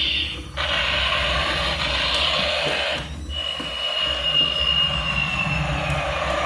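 Battery-powered toy vehicle sounds: a steady electronic or motor noise with two brief breaks. About three seconds in, a high steady tone starts and slowly falls in pitch.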